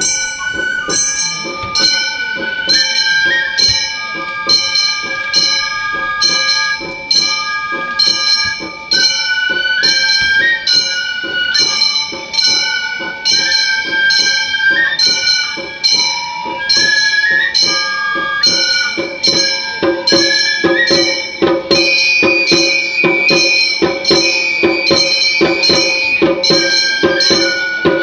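Gion-bayashi festival music: small hand-struck gongs keep a steady beat of about two strokes a second under a high flute melody that steps up and down, with drums.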